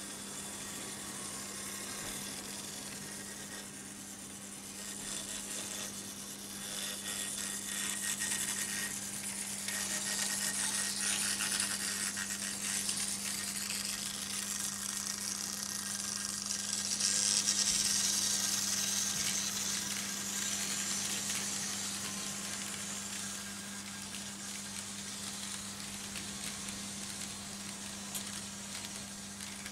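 Märklin H0 model trains running on metal M-track: wheels rattling over the rails above a steady low hum. The rattle builds as a NOHAB diesel with a freight train passes close by, is loudest a little past the middle, then eases off.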